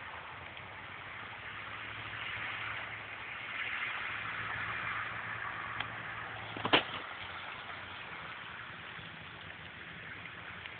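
A car passing slowly on a snow-covered road, its engine and tyre noise swelling and then fading. A single sharp knock comes in about two-thirds of the way through.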